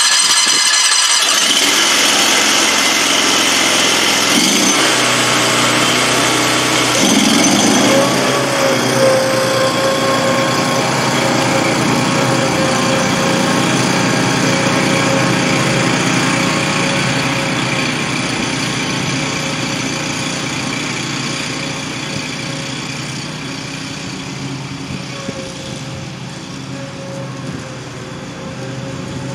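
Predator 670 22 hp V-twin engine on a Grasshopper 718 zero-turn mower running as the mower drives away across a field. The engine note rises about seven seconds in and then holds steady, and the sound grows gradually fainter over the last third as the mower moves off.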